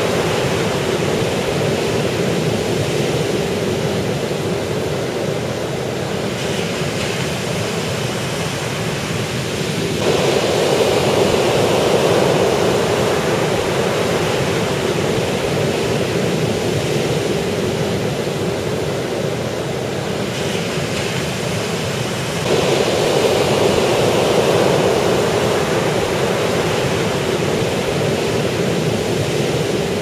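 Sea surf breaking on a sand beach: a steady rush of waves and wash that swells suddenly louder twice, about a third of the way in and again about three-quarters of the way through.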